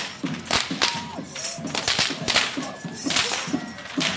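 Loud, sharp cracks of the tlacololeros' whips (chirriones), irregular at about two a second, over music.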